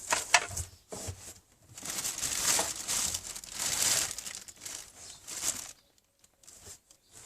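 Packaging being handled during unboxing: crinkling and rustling of wrapping in irregular bursts, with a few sharp clicks near the start and a quieter spell near the end.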